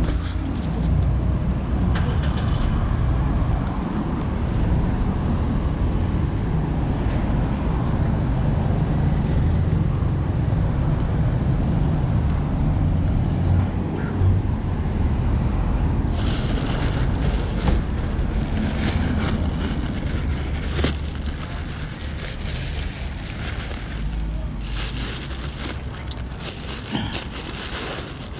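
Steady low rumble of vehicle engine or traffic noise, easing off somewhat in the last few seconds.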